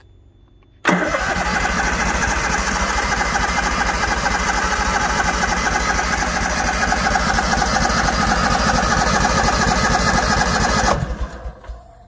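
Briggs & Stratton Vanguard engine of a natural-gas standby generator cranking on its starter motor for about ten seconds, a steady fast pulsing, then cutting off abruptly without catching. This is the first of the controller's six automatic start attempts, made before the gas has reached the engine.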